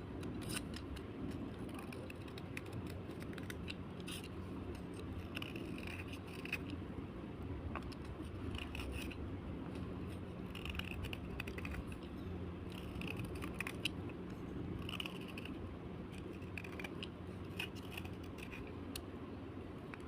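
Slate being scraped and crumbled at close range: dry gritty scratching with many scattered small clicks, over a steady low hum.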